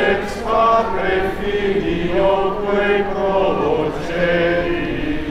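A crowd of men and women chanting a prayer together in unison, in slow held notes.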